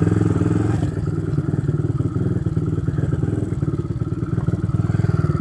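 Chinese replica Honda Monkey's small single-cylinder engine running at low revs with a fast, even exhaust beat, dipping slightly in level about a second in.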